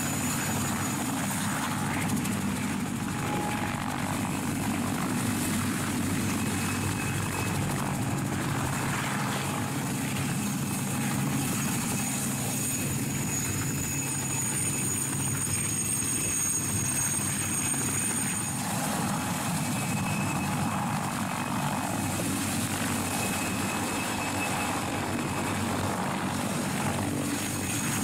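Mil Mi-2 helicopter hovering close by: the steady beat of its main rotor under the high whine of its twin GTD-350 turboshaft engines, holding an even level.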